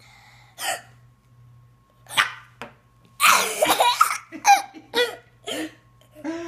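A three-year-old child hiccuping: short, sharp yelp-like hiccups a second or so apart. About three seconds in he breaks into a long burst of laughter, followed by a few short giggles.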